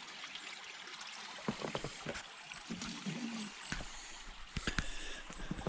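Ford 6.4 litre Power Stroke diesel being started in the cold: clicks and rustling, then the engine catches about three and a half seconds in and settles into a low, steady running rumble.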